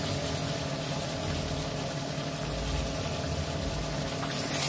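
Tempeh in chili sauce sizzling steadily in a wok on a gas stove.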